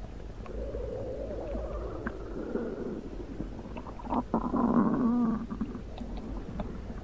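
A gurgling, rumbling gut sound that wavers in pitch, with a louder, stronger stretch about four seconds in that lasts over a second.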